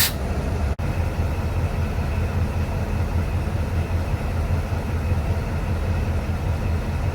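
Diesel locomotive engine idling with a steady low drone, broken by a momentary dropout just under a second in.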